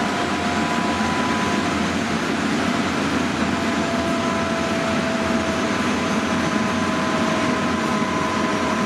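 Machinery running in the machine room of an ICE 1 (class 401) power car: a steady, loud noise with two whining tones over it, the lower one sinking slightly in pitch.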